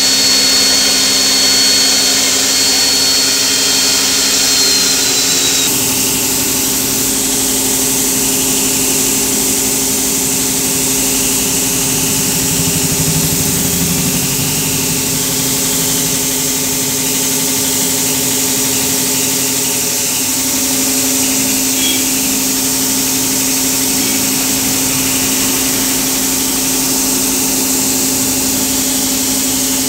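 CNC slot-mortising machine cutting a slot in a wooden block with its spindle-driven router bit: a loud, steady mechanical running sound with a high hiss and a high tone that dips slightly and stops about six seconds in. The machine then keeps running steadily with a low hum.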